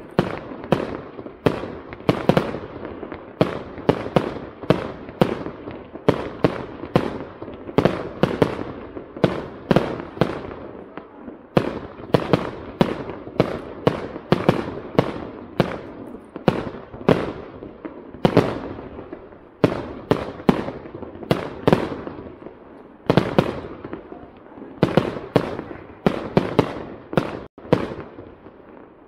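Aerial fireworks display: a rapid, continuous barrage of bursting bangs, about two or three a second, each ringing out briefly before the next.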